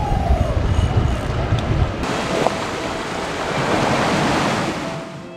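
Sea waves washing against a rocky shore, with wind buffeting the microphone. The wind rumble is heaviest in the first two seconds, then a wave surge swells and fades away.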